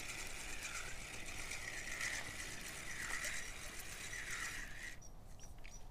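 Spinning reel being cranked to retrieve line, its gears whirring with a fine rapid ticking that rises and falls with each turn of the handle, about once a second, then stopping about five seconds in.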